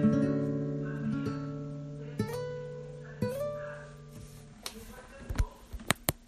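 Guitar playing the closing chord of a song, left ringing and slowly fading, with two single notes picked over it about two and three seconds in. After the chord dies away, a few sharp clicks near the end.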